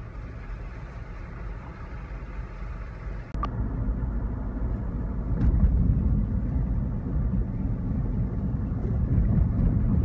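Low, steady road and wind rumble of a vehicle driving on a wet road, heard from inside the cabin. It starts abruptly about three seconds in, after a quieter stretch of outdoor background.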